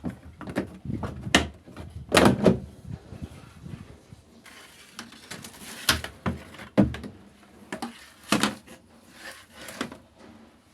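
A series of irregular knocks, clunks and short rattles, as of hard parts being handled and moved about, the loudest a couple of seconds in.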